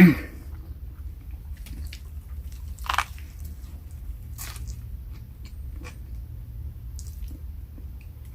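Close-up mouth sounds of a person biting and chewing a Subway sandwich: wet chewing with scattered small clicks and a louder bite about three seconds in.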